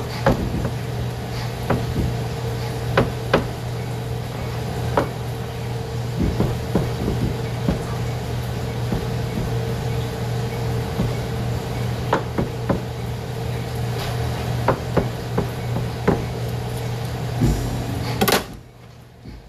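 Chef's knife chopping mushrooms on a plastic cutting board: irregular sharp knocks of the blade hitting the board. A steady hum of kitchen equipment runs underneath and cuts out near the end.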